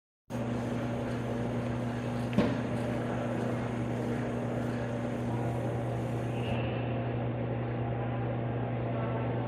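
Steady low electrical hum of running equipment, with a single sharp click about two and a half seconds in.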